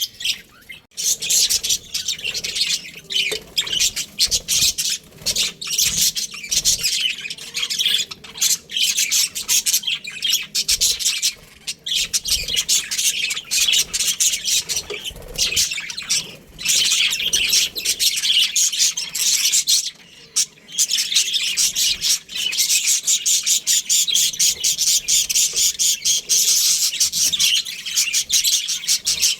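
Budgerigars chattering: a dense, continuous stream of rapid high chirps and squawks, with a few brief lulls.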